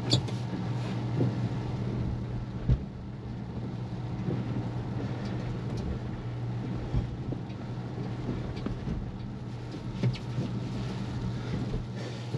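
Cabin noise of a Tesla Model Y creeping over snow: a steady low hum, with a few short knocks just after the start, about three seconds in and near ten seconds.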